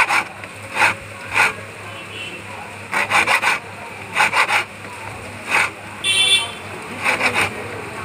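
Hand file rasping on a metal key blank in short groups of strokes with pauses between. The blank is being filed down at the marks left by the lock's wafers, cutting a key for a Spark motorcycle handle lock by impressioning.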